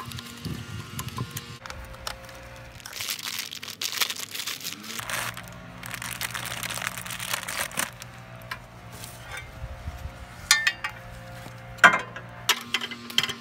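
A plastic parts bag crinkling and small hardware clicking and clinking while a walk-behind leaf blower's handle is assembled by hand. Soft background music runs underneath.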